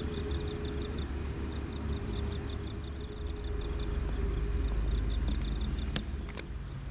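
Outdoor ambience: a low rumble of wind on the microphone under a high chirping repeated several times a second, with a few footsteps on the railway track's stones and sleepers about six seconds in.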